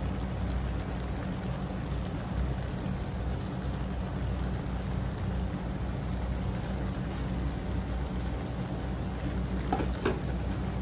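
Pork and liver pieces sizzling and bubbling in soy-sauce liquid in a wok: a steady, even sizzle.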